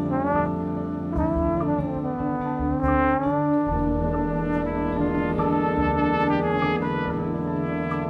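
Horn section of a jazz ensemble (trumpets, saxophones, trombone and tuba) playing held notes together, several bending and sliding in pitch, over a steady low bass line.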